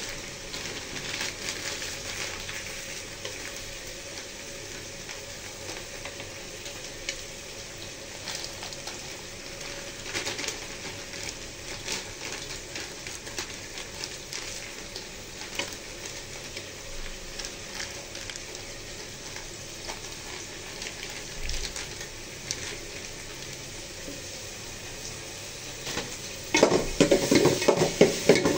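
Peas, potatoes and chicken sizzling steadily in oil in an aluminium pot on a gas burner, with scattered crackles. Near the end a metal spoon stirs the pot, scraping and clattering loudly against its sides.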